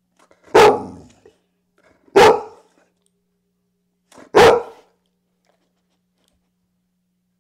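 Large dog barking three times, single loud barks about two seconds apart, frustrated at treats held in the trainer's hands.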